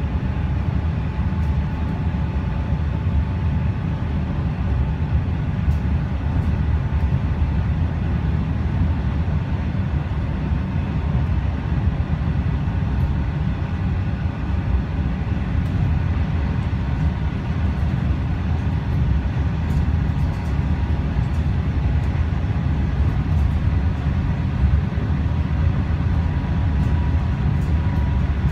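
Suburban electric train running at speed, heard from inside the passenger carriage: a steady low rumble with a faint steady whine above it.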